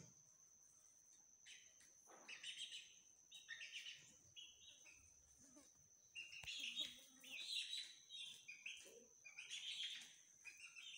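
Young chickens peeping: short, high chirps in several clusters with quiet gaps between.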